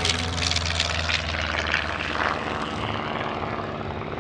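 Long-EZ light aircraft's pusher propeller and piston engine droning as it passes low. The steady low drone eases after about two and a half seconds, with a crackling hiss over it early on.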